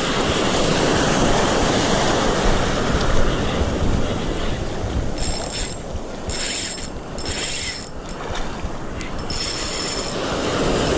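Sea waves washing on the shore, with wind buffeting the microphone. Several short bursts of hiss come between about five and ten seconds in.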